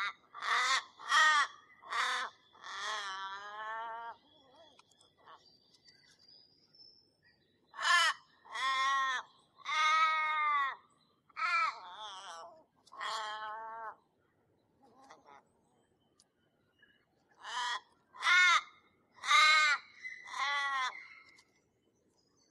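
A crow cawing in three runs of four or five calls, a few seconds apart, with some calls drawn out longer than the rest.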